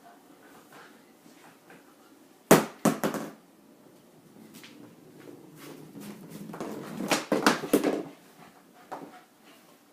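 A dog's game of fetch with a ball: a cluster of sharp knocks and thumps about two and a half seconds in, then a longer run of knocks and scuffling around the seventh second.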